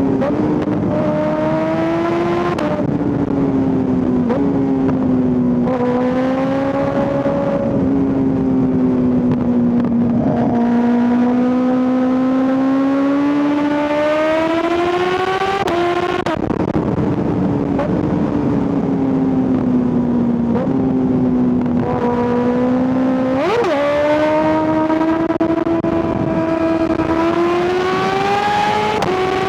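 Kawasaki ZX6R's 636 cc inline-four at high revs under hard riding, with wind rushing past. Its note climbs, then drops back sharply about every three to six seconds as the gears change.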